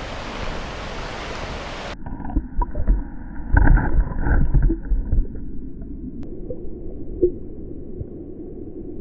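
River water rushing and splashing around a swimmer at the surface. About two seconds in it gives way to muffled underwater sound, with low rumbles and knocks from movement in the water, which settle to a quiet hiss in the second half.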